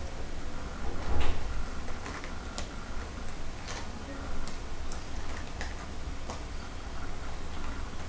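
Irregular small clicks, about one a second and unevenly spaced, over a steady low electrical hum and a faint high steady whine.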